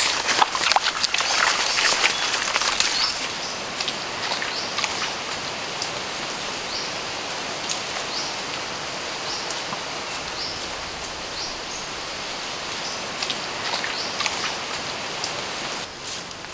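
Forest ambience: a steady high hiss with a short rising chirp about once a second, from a bird or insect. In the first few seconds there is louder crackling and rustling of leaves and brush as someone moves through the undergrowth.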